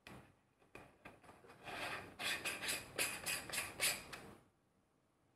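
A 52 mm Seagull variable ND filter being screwed by hand onto a JJC filter adapter on a Sony ZV-1: short scratchy rubs and clicks of the threads and rings being turned. The rubs are sparse at first and come thick and fast in the second half, then stop about four and a half seconds in once the filter is on tight.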